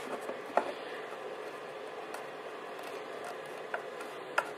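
A few short, sharp clicks and knocks as a wooden bench leg is turned by hand onto its metal mounting plate, over a steady low hiss.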